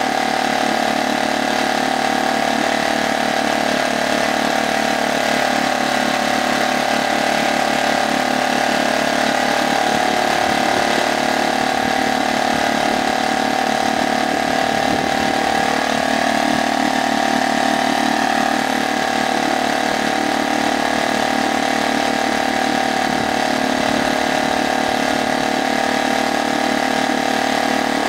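New HDX F 2.6 single-cylinder four-stroke outboard motor running steadily in a water test barrel on one of its first runs, its propeller churning the water.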